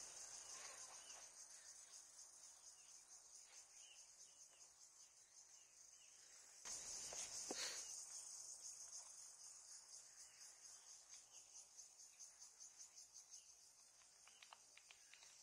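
A chorus of insects trilling high-pitched in a fast, even pulse; it swells louder for a couple of seconds about seven seconds in, then eases off.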